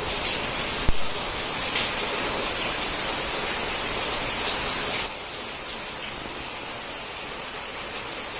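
Heavy rain pouring down in a steady hiss, with one sharp knock about a second in. The rain goes softer and duller from about five seconds in.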